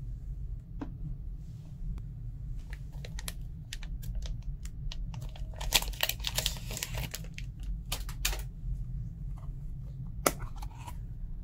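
Clear plastic Tamiya Battery Case II and its packaging being handled: a scatter of light plastic clicks and taps, thickening into a run of crinkling and rattling in the middle, with one sharper click near the end. A steady low hum runs underneath.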